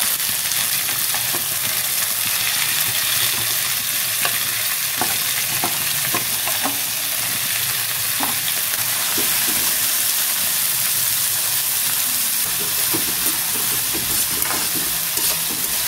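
Freshly added diced vegetables sizzling steadily in hot oil in a karahi, stirred with a steel slotted spatula that scrapes and clicks against the pan now and then.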